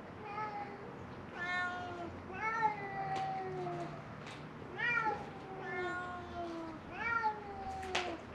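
Feral cats meowing over and over, about six meows, several of them long and falling in pitch, crying for food. A sharp click near the end.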